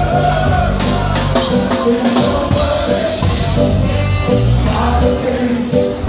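Live reggae band playing through large street PA speakers: a singer over bass and a steady drum beat.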